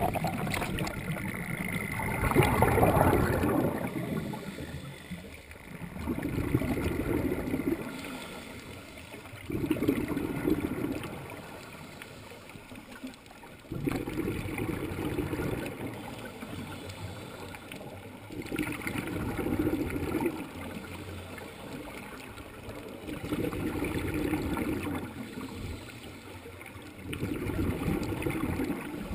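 Scuba regulator exhaust bubbles heard underwater: a diver breathing out in a slow, regular rhythm, a bubbling surge about every four seconds, seven in all.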